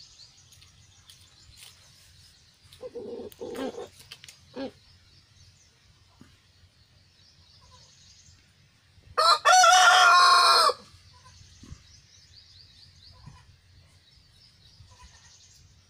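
Rooster crowing once, a loud cock-a-doodle-doo about a second and a half long, starting about nine seconds in. Earlier, a few seconds in, a handful of short low clucking calls, with faint high chirping in the background.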